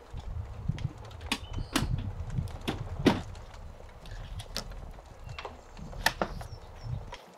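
Gear being handled in the back of a Jeep: a run of irregular knocks, clunks and clicks, the loudest about three seconds in.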